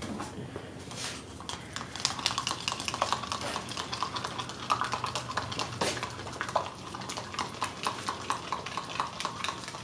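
Acrylic paint being stirred together with Floetrol pouring medium in a container, the stirrer clicking and scraping irregularly against the sides.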